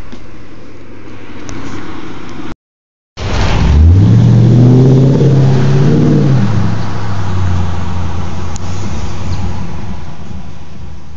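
A car driving past on the road, its engine note rising as it accelerates, then dropping back to a steady lower hum as it carries on. It comes in loud about three seconds in, right after a brief total dropout of sound.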